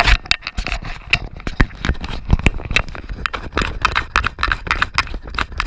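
Rapid, irregular knocking and rattling from a GoPro strapped to a pug's back as the dog scampers around, several knocks a second.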